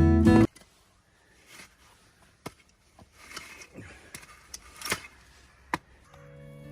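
Acoustic guitar background music stops abruptly about half a second in. Faint scattered clicks and knocks follow, and the music comes back in near the end.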